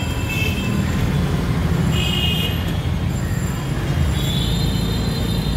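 Steady low rumble of background noise, with two brief high-pitched squeals, about two seconds in and again from about four seconds in.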